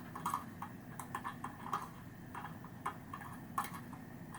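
Light, irregular clicks and taps from a steel spoke and a spoke nipple being handled against a deep-section carbon rim as the nipple is fitted onto the spoke.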